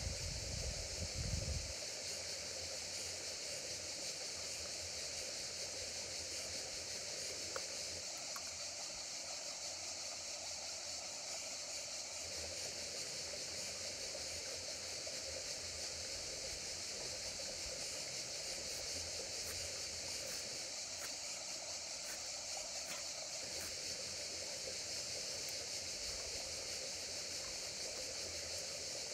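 Steady rush of a river flowing over stones, a constant hiss that does not change. A brief low rumble in the first two seconds.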